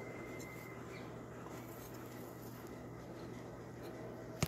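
Quiet chewing of a mouthful of cornstarch, a faint scratchy crunch over a steady low hum, with one sharp click near the end.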